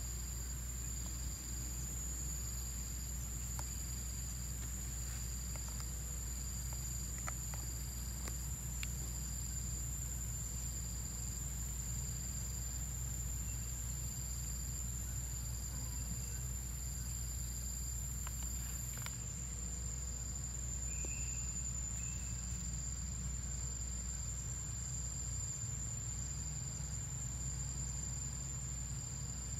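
Forest insects: a steady high-pitched drone, with a second insect pulsing about once a second, over a low steady rumble.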